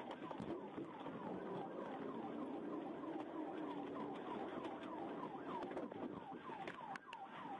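Police car siren sounding in a fast yelp, a quick run of falling sweeps about three a second.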